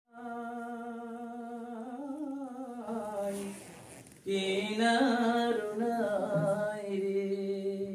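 A singer's unaccompanied voice opening a Bengali song with wordless long held notes. A first long note wavers and fades, then after a short break a louder second phrase rises and falls.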